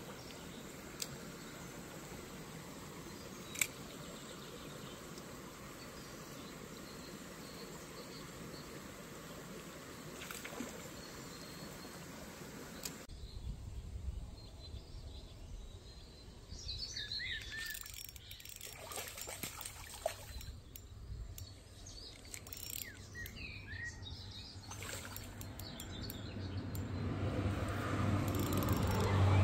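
A shallow stream running steadily, with a couple of sharp clicks. About 13 seconds in it changes to birds chirping over a low rumble, with a louder sound building near the end.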